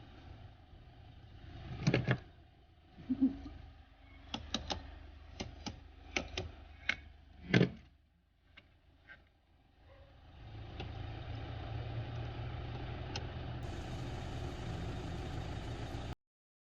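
Metal clicks and knocks of tools working on the car battery's negative terminal, with one louder knock just past the middle. Then, about ten seconds in, the Toyota Fortuner's engine starts and runs at a steady idle on the newly fitted battery.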